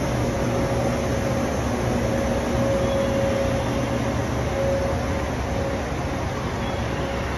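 Steady hum of a JNR-type 455-series electric train's onboard equipment, with a mid-pitched whine that swells and fades and a lower tone beneath it.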